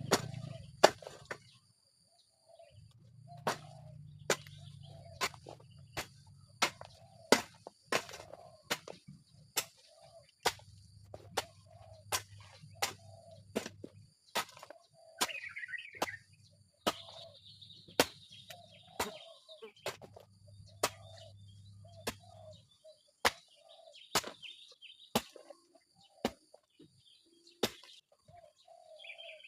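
Sharp taps, roughly one a second, over a low hum that comes and goes in stretches of a few seconds; birds chirp faintly now and then.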